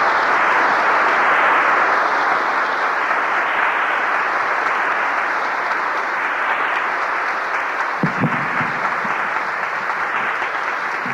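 Church congregation applauding steadily, welcoming Cardinal Paul-Émile Léger, easing off slightly near the end.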